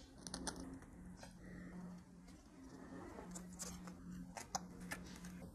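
Faint crinkling and small clicks of a thin plastic adhesive film being peeled and handled over a phone screen, over a faint steady low hum.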